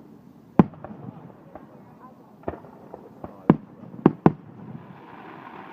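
Fireworks going off: irregular sharp bangs, about five loud ones with two in quick succession around four seconds in, and fainter pops between them.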